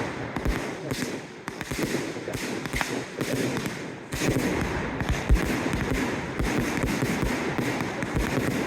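Fireworks display going off in a rapid, irregular series of bangs and thuds, several a second, with one louder bang about five seconds in.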